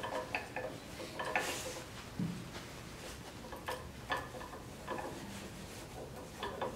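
Irregular small metal clicks and taps from a flat-head bolt being handled and fitted into a metal support block clamped on a steel stand rod, with one duller knock about two seconds in.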